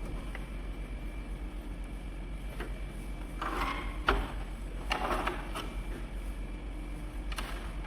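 Handling and work noises: scattered light clicks and knocks and two short scraping rustles, the louder about three and a half and five seconds in, over a steady low hum.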